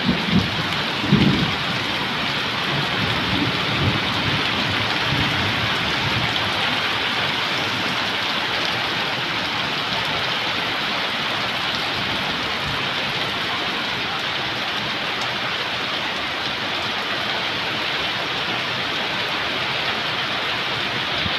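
Heavy rain pouring steadily onto pavement and roofs, a dense even hiss. A few low thumps stand out in the first few seconds.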